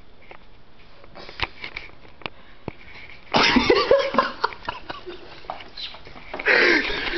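Soft handling clicks and rustles, then about three seconds in a sudden loud commotion breaks out with excited, breathy voices; a second outburst comes near the end.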